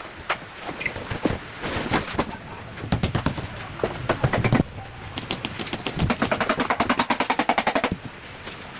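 Repeated sharp metal-on-metal impacts from bodywork on a car. Irregular knocks come first, then from about six to eight seconds in a fast, even run of roughly ten strikes a second, like a pneumatic hammer or chisel.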